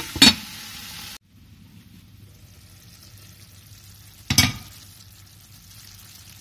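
Squash curry sizzling in a frying pan, with a glass lid clinking onto the rim of the pan just after the start. The sizzle then drops to a faint steady simmer, broken by one more sharp clink a little past four seconds in.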